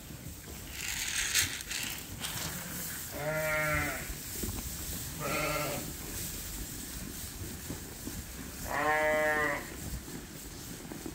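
Sheep bleating three times, a few seconds apart; the first and last bleats are longer than the middle one.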